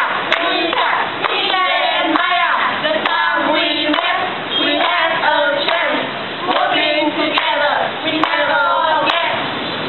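A small group of voices, mostly women's, singing a song together in unison while clapping their hands along.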